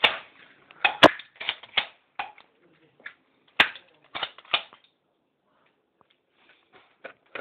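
Two sharp gunshot cracks, one about a second in and a second one about midway, with scattered lighter clicks and knocks between them.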